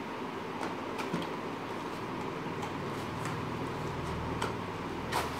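Cardboard toy box being handled and opened by hand: a few faint, scattered taps and clicks from the flaps and packaging.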